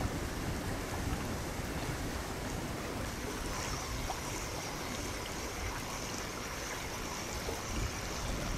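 Amphibious remote-control toy vehicle paddling across water, its treads churning and splashing, with wind noise on the microphone. The splashing hiss grows brighter about halfway through.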